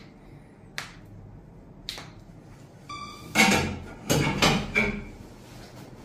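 Toe joints popping with short sharp cracks as they are pulled one by one, twice in the first half. Halfway through comes a brief squeak, then a loud clatter of knocks and scraping.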